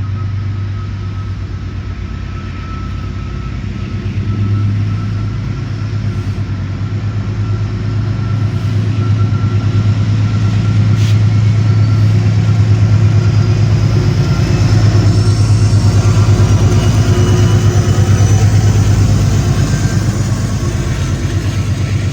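GE P32AC-DM locomotive's diesel engine running with a steady, fast low throb that grows louder through the first half.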